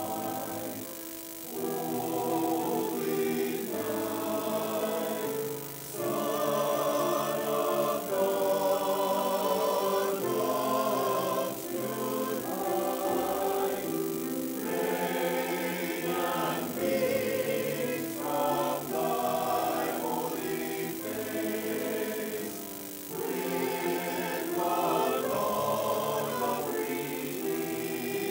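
Mixed-voice church choir singing in long phrases, with a few short pauses between them.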